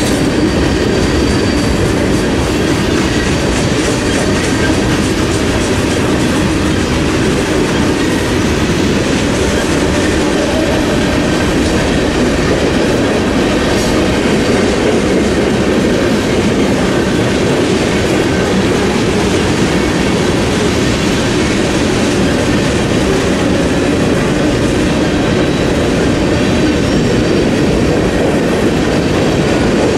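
A mixed freight train's cars rolling past: a steady, loud rumble of steel wheels on the rails, with the rattle of autoracks, boxcars and covered hoppers going by.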